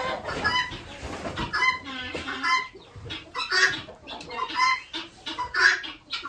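Young chickens clucking and cheeping in a run of short, irregular calls.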